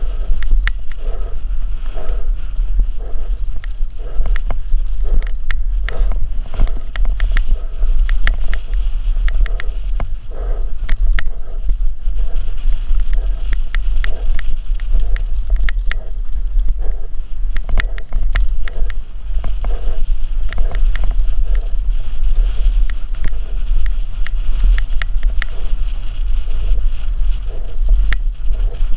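Downhill mountain bike descending a rough dirt trail at speed, with constant rattling and irregular sharp clicks from the bike clattering over the bumps, over a heavy low rumble of wind buffeting the helmet-camera microphone.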